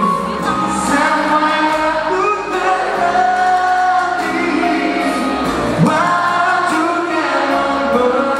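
A song with singing over an instrumental backing: long, held melody notes throughout.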